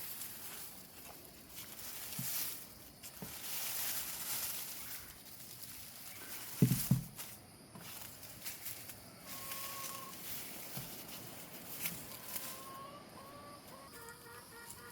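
Rustling and scraping in garden soil with two heavy thumps about seven seconds in, and brief clucking of chickens near the end.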